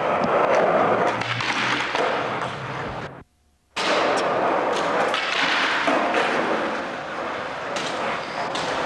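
Skateboard wheels rolling over rough pavement, a loud steady grinding rumble with a few small clicks. It cuts out for about half a second roughly three seconds in, then resumes.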